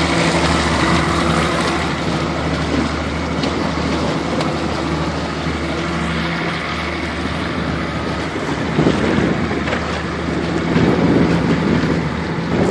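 Motorboat engine running with a steady drone, under a haze of wind and water noise.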